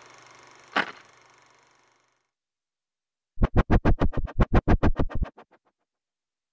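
A single sharp click, then a burst of rapid, evenly spaced sharp hits, about eight a second, lasting about two seconds and cutting off into silence.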